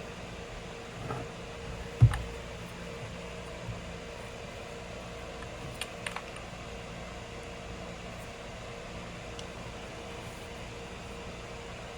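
Steady background hum with a single sharp knock about two seconds in and a few light clicks around six seconds: hand tools and parts handled while the Allen bolts holding the chainsaw's oiler are backed out.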